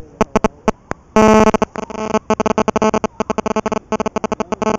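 Fishing reel drag clicking as a hooked fish pulls line, the clicks running together into a brief loud buzz about a second in, then coming quickly again.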